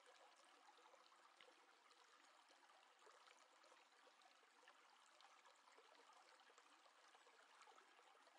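Near silence: a faint hiss with light scattered ticks of a paintbrush dabbing watercolor paint on paper.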